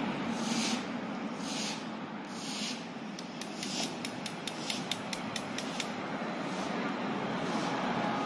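Street traffic noise: a steady hum of passing cars. About three seconds in, a quick run of light ticks starts, roughly five a second, and lasts for about three seconds.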